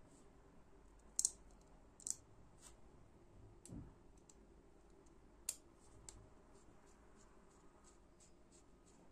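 Small metallic clicks and ticks of a Torx screwdriver tip working in the screw holes of a disassembled folding knife's handle parts. Three sharper clicks come about a second, two seconds and five and a half seconds in, with a soft low bump just before four seconds and lighter, fairly even ticking after.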